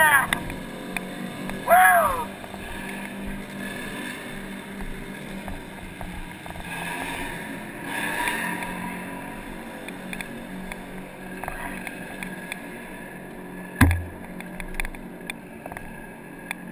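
Dirt bike engine running at low speed with a steady hum. There is a brief shout about two seconds in and a single sharp thump late on.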